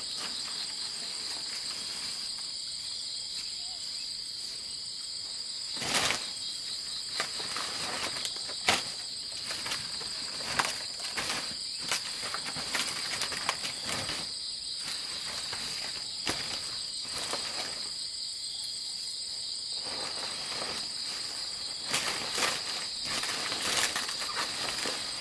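Steady high chirring of insects, with the crackling rustle of large banana leaves being handled and stacked in short bursts, loudest about six and nine seconds in.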